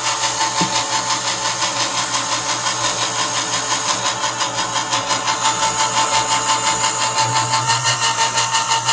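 Electric can opener motor running steadily as it turns a can and cuts around the lid, a steady hum with a fast, even pulsing.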